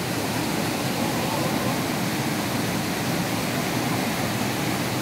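Small waterfall pouring into a rocky pool: a steady rush of falling water.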